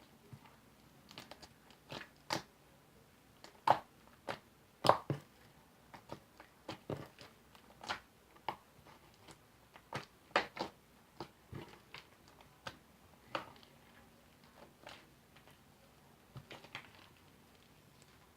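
Hands kneading and stretching sticky glue slime that has just had more detergent activator worked in. It gives off irregular wet clicks and squelches, with two louder pops about four and five seconds in.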